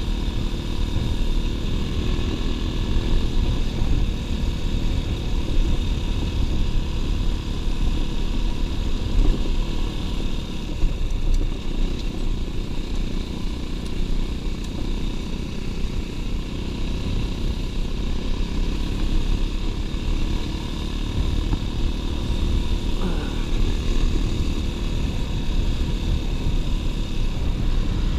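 Steady rumble of wind buffeting the camera microphone and tyres rolling over a stony dirt track, from a moving mountain bike.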